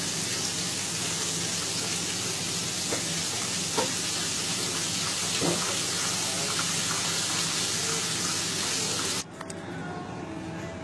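Gravy sizzling steadily in a skillet of oil-and-butter roux with milk just added, with a few light clicks from a utensil against the pan. The sizzle cuts off abruptly about nine seconds in, leaving quieter sound.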